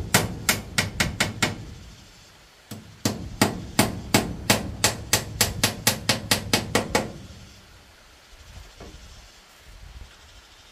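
Hammer blows on bamboo framing, likely driving nails: a quick run of about seven blows, a single blow, then a longer run of about seventeen that quickens to roughly four or five a second before stopping.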